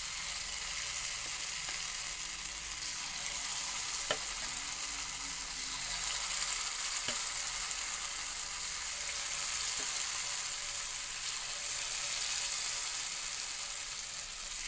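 Paniyaram batter sizzling in hot oil in the cups of a paniyaram pan as it is ladled in: a steady hiss with a few faint clicks.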